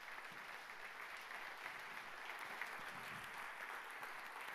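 Audience applauding, a steady spread of many hands clapping.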